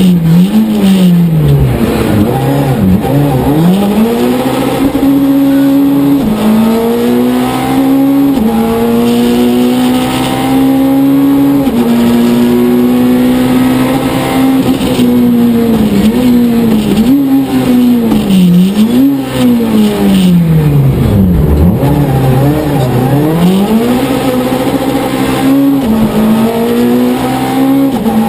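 In-car sound of a Citroën C2 Max rally car's four-cylinder engine at race pace, revs climbing hard through upshifts with sudden drops at each gear change, then falling and rising again several times as the driver brakes, downshifts and accelerates out of corners.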